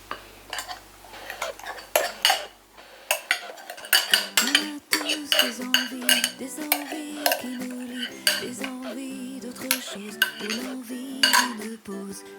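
A utensil repeatedly tapping and scraping against a mixing bowl as whipped egg whites are folded into cake batter. Background music comes in about four seconds in.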